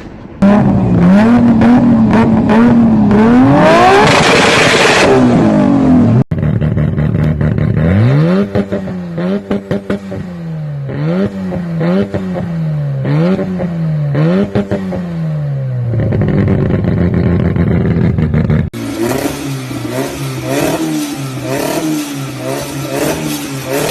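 Turbocharged car engines revved in three separate clips: first a rev that climbs and falls with a burst of hiss near the top, then about five quick blips of the throttle, then a run of faster, shorter blips.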